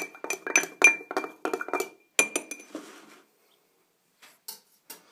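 A metal knife stirring a drink in a drinking glass, clinking rapidly against the glass, about four ringing clinks a second. The clinking stops a little under three seconds in, followed by a few faint knocks.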